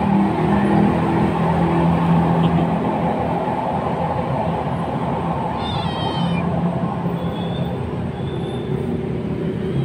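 A hungry kitten gives one short, high-pitched meow about six seconds in, over a steady low rumble; a few fainter high calls follow.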